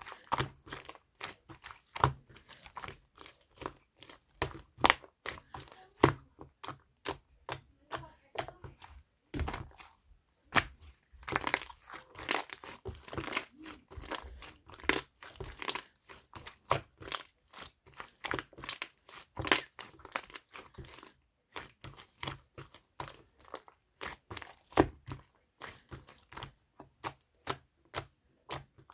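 Slime being squeezed and stretched by hand, giving an irregular string of sharp clicks and pops, several a second.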